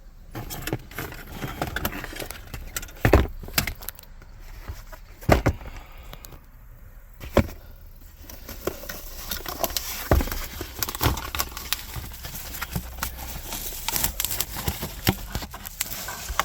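A replacement hard-plastic cup holder console being unpacked from its box: continual rustling and crackling of packaging, with several sharp knocks, the loudest about three, five and seven seconds in.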